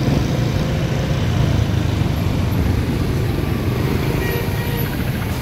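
Motorbike running with a steady low rumble of engine and wind on the microphone.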